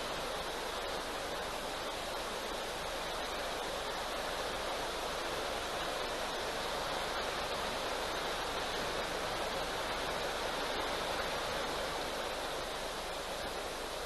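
Steady rushing of a flowing river, an even, unbroken hiss of moving water.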